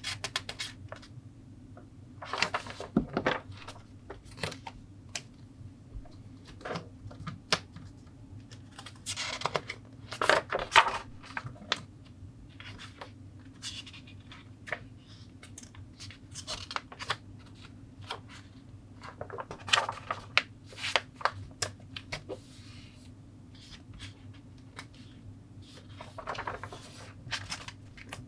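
Plastic model kit parts being handled: sprues clicking and knocking against each other, with bursts of plastic-bag crinkling, over a low steady hum.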